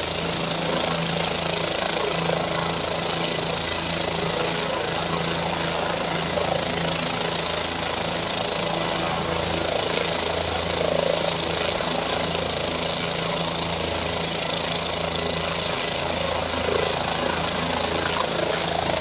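Turbine helicopter running on the ground, its engine and main rotor giving a steady low hum with an even, slow beat from the rotor.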